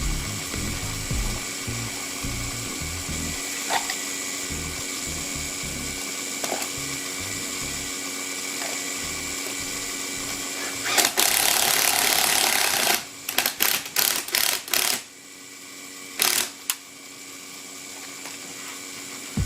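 Vacuum pump running with a steady hum during an air conditioner line vacuum. About eleven seconds in, a loud hiss of rushing air lasts about two seconds, followed by several short hisses, and then the sound drops much quieter.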